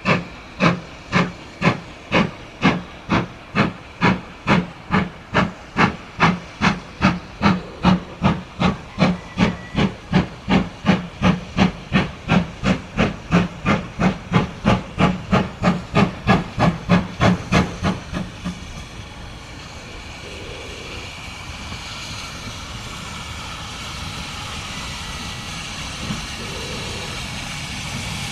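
Steam locomotive 9351 pulling away with its train, its exhaust chuffing in even beats about two a second. The chuffing stops about eighteen seconds in, leaving a steady hiss as the engine rolls closer.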